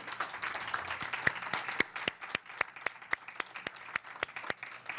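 Audience applauding, with one person's close, sharp claps standing out at about four a second from about a second in.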